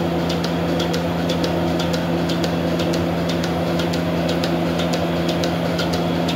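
Steady mechanical hum holding the same pitch throughout, with quick, irregular light ticking over it, several ticks a second.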